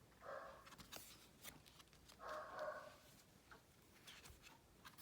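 A dog barking faintly in the distance, twice: once just after the start and again about two seconds later. Light clicks of cards being handled come in between.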